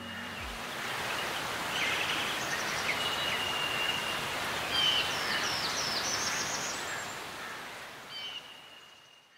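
Outdoor ambience: a steady hiss with several birds calling over it, including one longer whistled note, fading out near the end.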